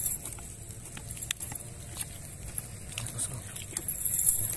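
Cast net being handled on wet mud: its chain weights clink in scattered small clicks and the mesh rustles as fish are picked out. A high steady hiss comes up near the end.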